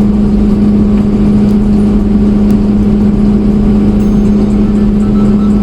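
Engine running steadily at a constant speed, a loud, even drone with no change in pitch.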